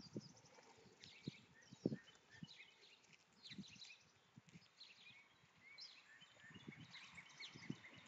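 Faint close taps and crunches as a gray squirrel eats from a pile of seed and cereal, with many small birds chirping in the background.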